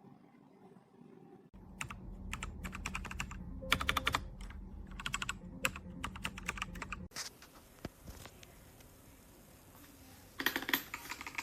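Typing on a DEKAY DK98 Pro mechanical keyboard: bursts of rapid keystroke clacks with short pauses, a quieter stretch with only a few key presses past the middle, then a fast run of typing near the end.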